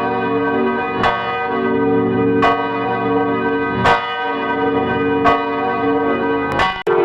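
Church bells ringing, struck about once every second and a half, each stroke's hum ringing on beneath the next. The ringing breaks off briefly near the end.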